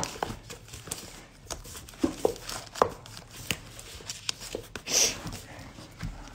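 Scattered clicks, knocks and rustling of objects being handled close to the microphone, with one louder swish or rustle about five seconds in.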